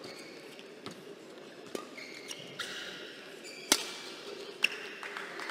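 Badminton rally: four sharp cracks of rackets striking the shuttlecock, about a second apart and the loudest a little past the middle, with short high squeaks of shoes on the court mat between the strokes.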